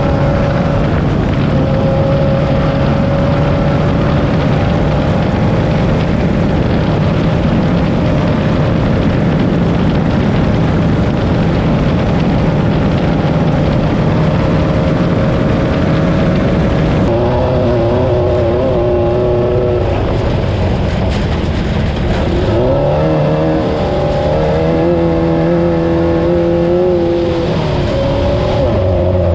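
Class 9 race buggy's air-cooled VW engine running hard at steady high revs. From about two-thirds of the way in, the revs rise and fall repeatedly, with short dips as the throttle comes off or gears change.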